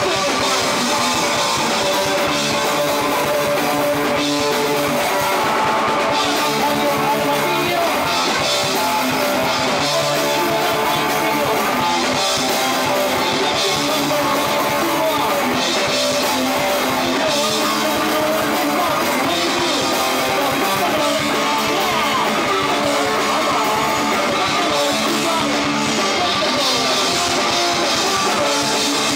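Punk rock band playing live, loud and unbroken: electric guitar over drums.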